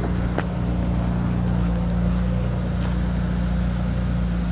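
A steady low mechanical hum, like a motor or engine running, with one faint tap about half a second in.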